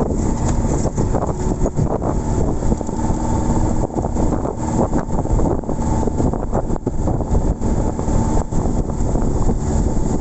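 A vehicle engine running steadily while on the move, with wind buffeting the microphone.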